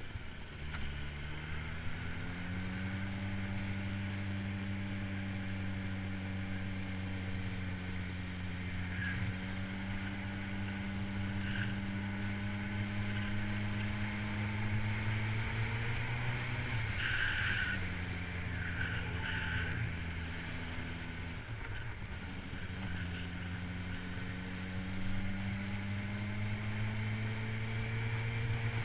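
Motor vehicle engine running under way, its pitch climbing in the first few seconds, dropping about 16 seconds in, then climbing again around 23 seconds. A few short high chirps come over it in the middle.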